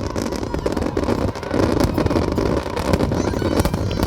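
Fireworks going off: a dense run of pops and crackles over a steady low rumble.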